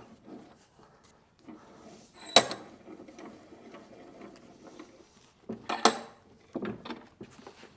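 Metal clanking and rattling from a cast hitch vise being worked, with two sharp, ringing clanks about three and a half seconds apart and lower scraping rattles between them.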